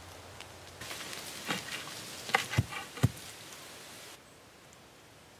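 Dirt being tamped down around a wooden fence post: a few dull thumps, about three of them close together near the middle, amid rustling of dry leaves underfoot.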